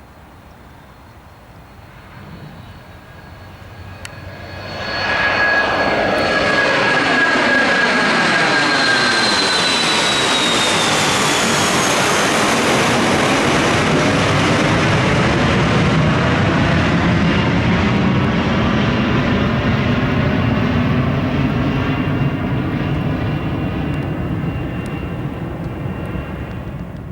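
Dassault Falcon 2000EX business jet's twin turbofan engines at takeoff power. The sound builds sharply about five seconds in to a loud, steady rush with a high whine that drops in pitch as the jet passes. It eases off near the end.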